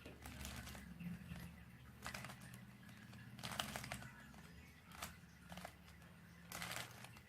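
Faint plastic clicks and rustles of a Rubik's cube being twisted by hand, a few turns spread through the stretch, over a low steady hum.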